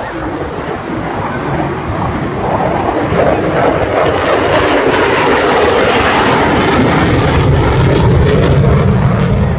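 Fighter jet flying past, its engine noise building over the first few seconds into a loud, steady rush that holds.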